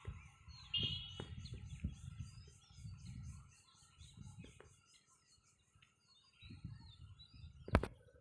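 Outdoor riverside ambience: a bird chirps about a second in, and a high trill pulses about five times a second. Under it run irregular low rumbles and small knocks, and a single sharp click near the end is the loudest sound.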